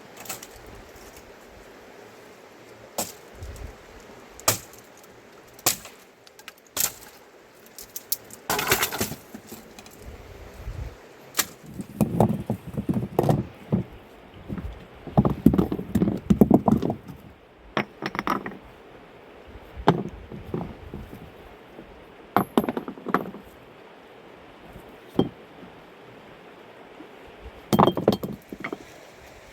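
Irregular knocks, thunks and clinks of hard objects being handled, with bursts of quick clattering, over a steady background hiss.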